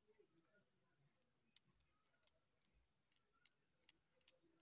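Faint, sharp clicks, about ten of them at an irregular pace, from a steel spoon tapping and scraping against a ceramic plate while roasted spice powder is sprinkled and spread over boiled peas.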